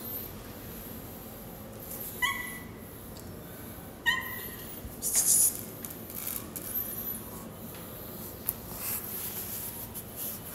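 Dry cat kibble rattling as a handful is tipped out onto a tiled floor. Two sharp, briefly ringing clinks come first, about two seconds apart, and the loudest rattle comes about five seconds in, followed by scattered small ticks.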